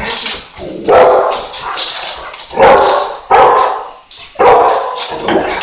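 A dog barking: about five loud barks, roughly a second apart.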